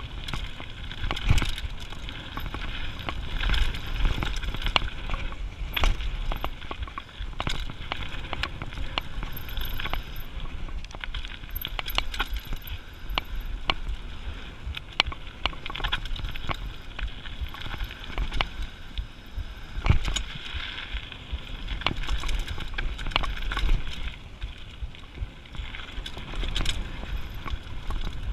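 Mountain bike descending a gravel and dirt trail: tyres rolling over loose gravel with a continual rattle and frequent sharp clicks and knocks from the bike jolting over bumps, over a low rumble of wind on the microphone.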